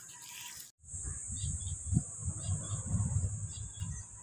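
A steady, high-pitched insect drone over a low, uneven rumble, with a few faint chirps; the sound drops out completely for a moment a little under a second in.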